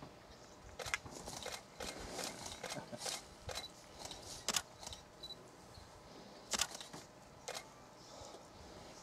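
Camera shutters clicking in irregular runs, dozens of sharp clicks, some in quick succession, with a lull of about a second and a half midway.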